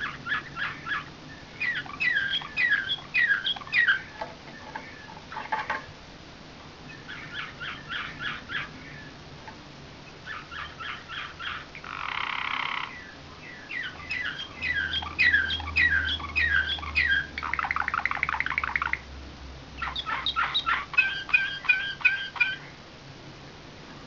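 Slavujar (nightingale-song) canary singing in a chain of separate phrases of quickly repeated notes with short pauses between them, including a buzzy phrase about twelve seconds in and a fast, even trill around eighteen seconds.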